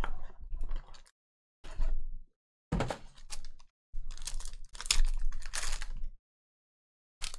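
Foil trading-card pack torn open and its wrapper crinkled, after a small cardboard card box is handled. The sound comes in about five short bursts of crinkling and tearing with silent gaps between them.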